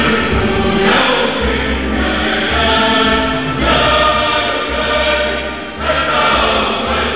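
A choir singing over instrumental accompaniment, with many voices holding and shifting notes above a steady bass line.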